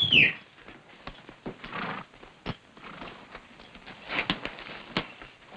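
Horse stable sounds: scattered knocks of hooves shifting on straw and the rustle of tack being handled. It opens with the tail of a loud high call that rises and falls.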